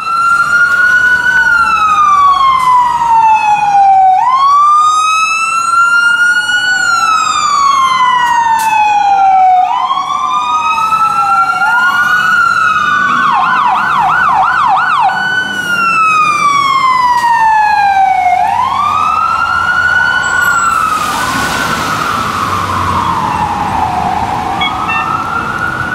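Fire truck sirens wailing, two of them overlapping. Each slides slowly down in pitch and sweeps quickly back up. About halfway through there are a couple of seconds of fast yelp.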